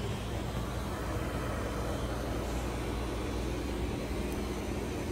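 Steady outdoor city ambience: a low, even rumble of distant traffic.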